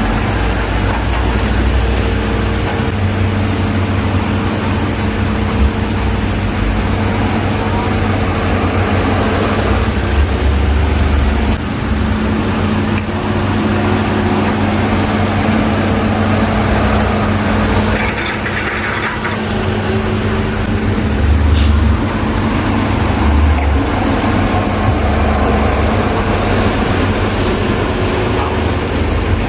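Heavy diesel engine running steadily, a low rumble with a constant hum.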